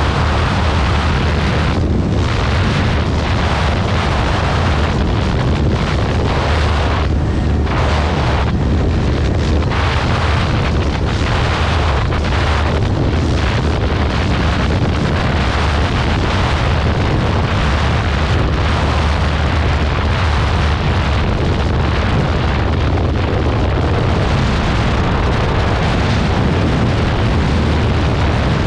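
Heavy, steady wind rumble on the microphone of a motorcycle running at top speed, with the bike's engine under it.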